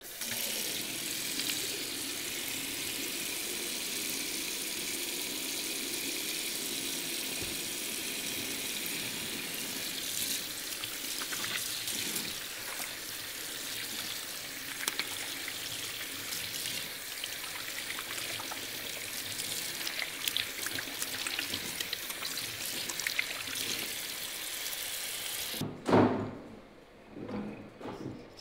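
Water running from a tap into a sink while hands are rubbed together under the stream, a steady rushing splash. Near the end the water cuts off abruptly, followed by one loud knock and a few softer handling knocks.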